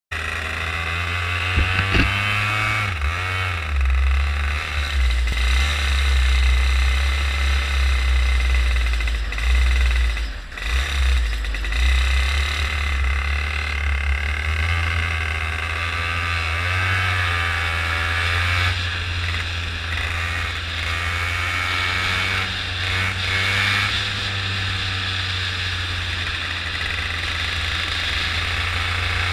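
Go-kart engine running under way, its revs rising and falling as the kart speeds up and slows, with a brief drop in level about ten seconds in.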